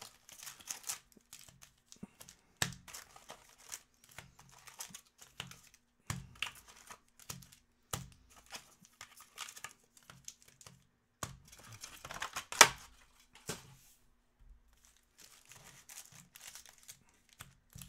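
Wrapped trading-card packs crinkling and rustling as they are lifted out of a cardboard hobby box and stacked by hand, in many short, uneven rustles. One sharper click stands out about two-thirds of the way through.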